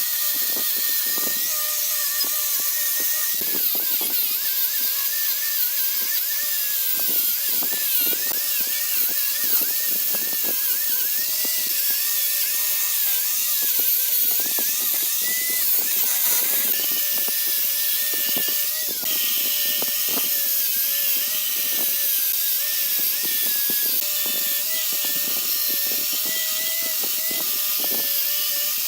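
A power tool running continuously, its pitch wavering slightly, over a strong hiss.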